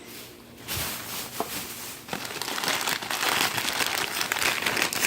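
Plastic bag and packaging crinkling as items are handled and rummaged through. It starts about a second in and grows louder and denser from about two seconds in, with a few small clicks.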